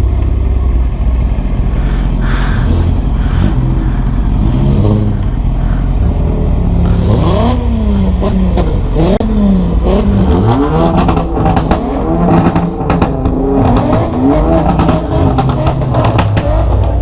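Kawasaki Ninja ZX-10R sportbike's inline-four engine pulling through the revs, its pitch rising and dropping again and again from about halfway in, over a steady rush of wind.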